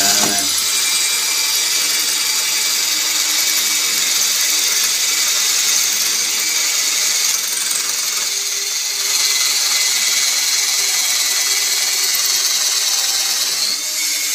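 Cordless drill boring into glazed ceramic wall tile: a steady, high-pitched grinding whine that runs on without a break as the bit cuts through the tile.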